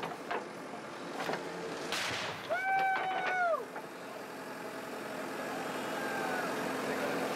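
Backhoe loader's diesel engine running steadily while its bucket digs at the pit's edge. About halfway through, a single drawn-out call about a second long cuts in and drops in pitch at the end, with a fainter one later.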